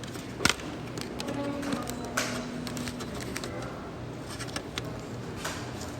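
A person hiccuping slowly: a few short, sharp hiccups spaced seconds apart, the loudest about half a second in.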